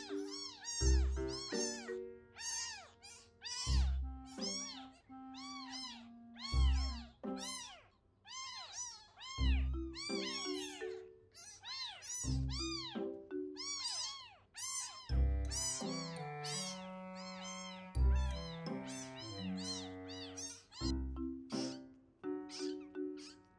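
Baby kittens mewing over and over in high, thin cries that come in quick, overlapping succession, over background music with a soft low beat about every three seconds.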